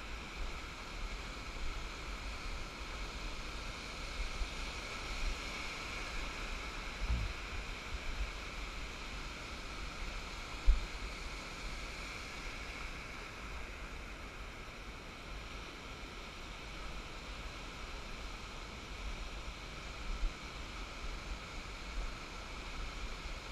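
Surf washing in over the sand as a steady noise, with wind rumbling on the microphone and one sharp thump about ten seconds in.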